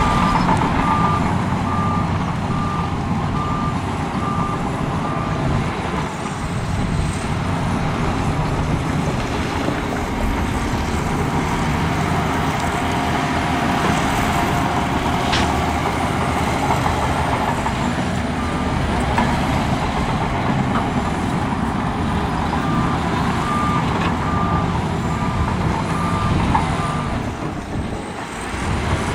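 Heavy diesel earthmoving machines run steadily. A reversing alarm beeps at an even pace for the first few seconds, then again for several seconds near the end.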